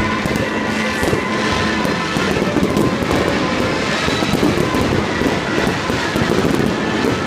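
Aerial fireworks barrage with many shells bursting at once: a continuous dense rumble of bangs with rapid crackling over it, never pausing.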